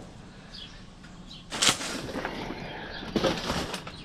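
Two loud, short noisy bangs about a second and a half apart, with birds chirping faintly in the background.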